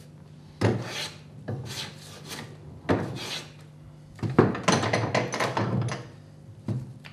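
Several short rasping strokes of a hand tool along a piece of timber, with a quicker run of strokes past the middle, taking down a slight lump in the middle of the board.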